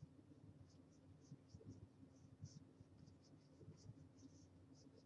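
Faint scratching of a stylus on a graphics tablet: short, irregular drawing strokes over a low steady hum.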